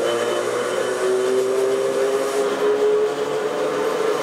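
Electric railcar MoHa 224 running, heard from inside the passenger car: rail noise with a motor whine whose pitch rises slowly as the train gathers speed.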